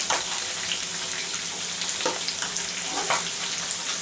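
Pork pieces deep-frying in hot oil, a steady sizzle with a few sharp crackles and pops.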